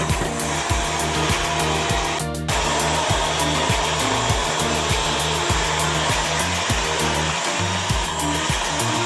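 Background music with a steady beat and a stepping bass line, over an even rushing hiss.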